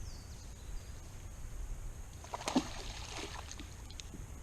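Water lapping and sloshing around a small fishing boat, with a short splashing, rustling flurry about halfway through.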